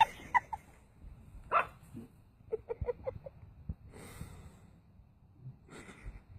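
A dog giving short high yips and whimpers, with a quick run of about six yelps in the middle, between breathy huffs.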